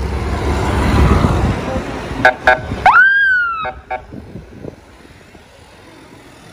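Street traffic rumble. About two seconds in comes a few short toots, then a longer high tone that jumps up and slides slowly down, and two more short toots. After that the street goes quieter.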